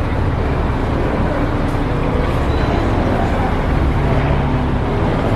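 Crane engine running steadily: a continuous low rumble with a faint steady hum.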